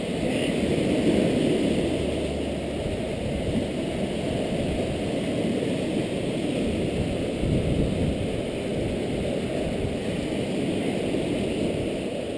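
Wind buffeting the microphone, a steady low rushing noise with no pauses.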